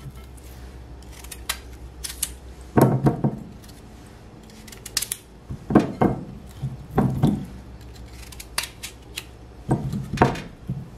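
A knife slicing through raw peeled potatoes in short crunches, and potato halves knocking into a glass bowl, several times over.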